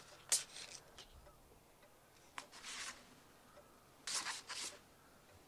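Photographic prints and sheets of paper rustling and sliding as they are handled, in a few short bursts: one near the start, then others about two and a half and four seconds in.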